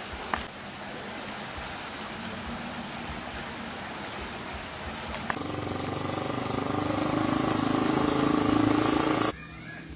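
Floodwater rushing steadily. About five seconds in, an engine comes in over it and grows louder, then cuts off abruptly near the end.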